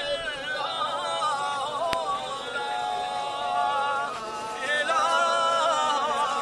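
A man's voice singing a slow, melismatic chant, with long held notes that waver and glide. A single sharp click about two seconds in.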